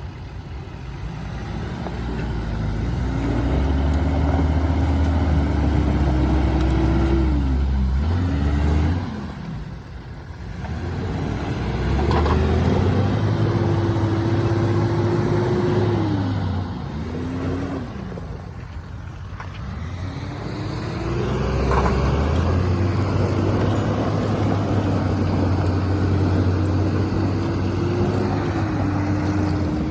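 Nissan GQ Patrol's engine pulling under throttle. It revs up and holds steady three times, dropping back with short blips of throttle in between.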